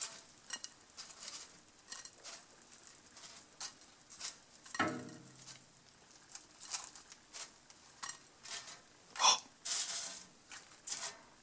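Baked snacks being picked by hand off a baking-paper-lined oven tray and set on a plate: scattered light taps, scrapes and paper rustles, with a louder knock and rustle near the end.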